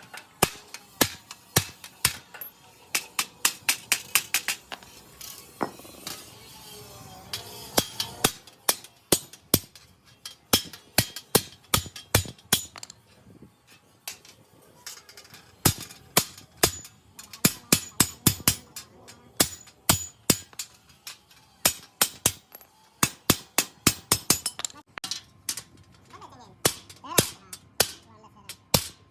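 A hammer striking metal over and over, sharp clanging blows that come in quick runs of several strikes with short pauses between them.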